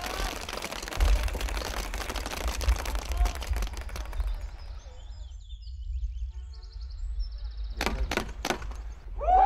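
Many paintball markers firing at once, a dense, rapid crackle of pops that stops about four and a half seconds in. A few more loud pops follow near the end.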